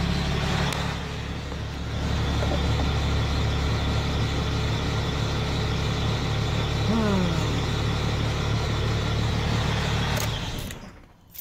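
Cummins 12-valve diesel engine in a Dodge pickup idling steadily, then stopping about ten and a half seconds in. A short falling squeak sounds about seven seconds in.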